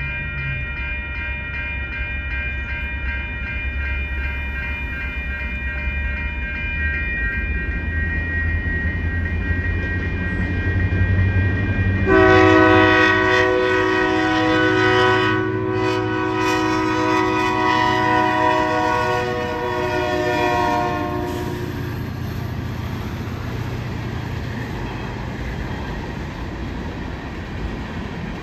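Railroad crossing bells ringing over the low rumble of an approaching Union Pacific freight locomotive. About twelve seconds in, its multi-note horn blows for roughly nine seconds with brief breaks. Then the freight cars rumble and clack through the crossing.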